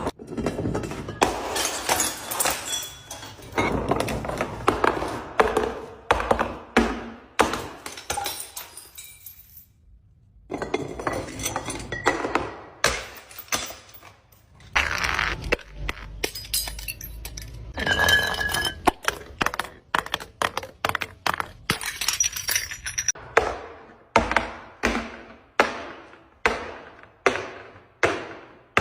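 Glass bottles breaking: repeated sharp crashes and clinks of glass, some hits leaving a brief ringing tone. Toward the end the hits come singly, about one a second.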